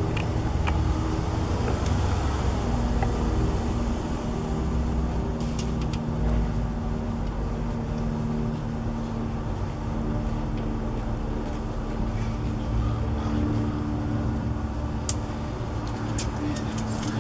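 A steady low mechanical drone, with a few sharp clicks near the end.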